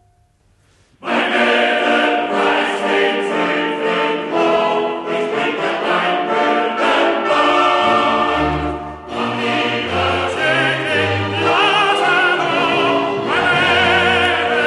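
Opera orchestra and chorus starting loudly together about a second in, after a brief silence, and carrying on at full strength with sung voices over the orchestra.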